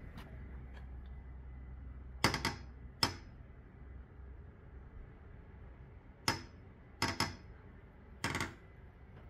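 Footsteps on the metal cargo floor of a CH-47 Chinook: five sharp, ringing metallic knocks, two close together, then a pause, then three more, over a low steady rumble.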